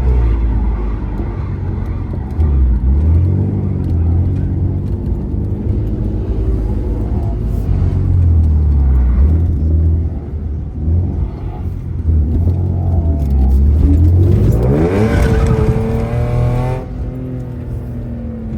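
Car engine running under way with the revs wavering, then climbing strongly in a long rising pull about fourteen seconds in that drops off sharply a couple of seconds later.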